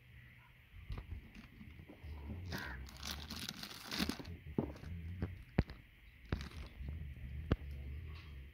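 Plastic wrapping crinkling as a new spin-on tractor filter is unwrapped in its box, for a second or two, followed by several sharp separate clicks and knocks.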